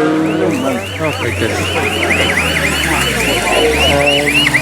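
An electronic alarm siren warbling rapidly, about three rises and falls a second, with an engine running underneath.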